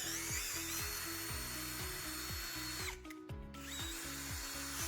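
Electronic background music with a steady kick-drum beat, over the high whine of a power tool that drops out about three seconds in and starts again, wavering in pitch.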